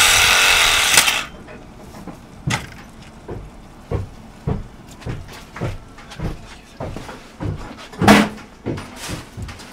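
A handheld power tool running on pipe held in a pipe vise, cutting off with a click about a second in. Then a run of light knocks about twice a second, with one louder knock about eight seconds in.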